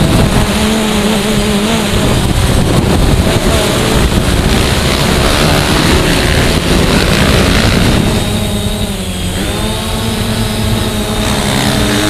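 Dirt-track racing motorcycle engines running hard, the pitch dipping and climbing back about nine seconds in.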